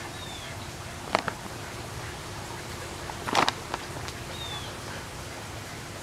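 Quiet outdoor background noise with two brief rustles of the plastic bag being handled, about a second in and again about three and a half seconds in, and two faint short falling chirps.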